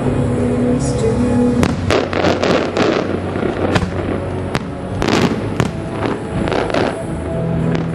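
Aerial firework shells bursting in a quick, irregular string of bangs and crackles, starting about a second and a half in, with music playing steadily underneath.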